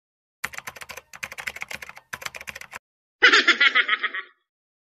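Keyboard typing sound effect, three quick runs of key clicks, then about three seconds in a short burst of laughter.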